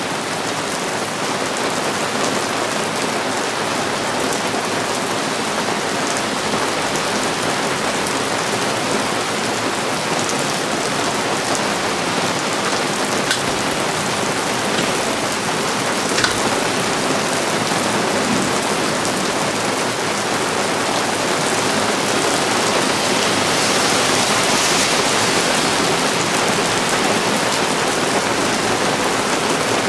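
Heavy thunderstorm rain falling steadily, a dense even hiss with a couple of sharper drop hits partway through.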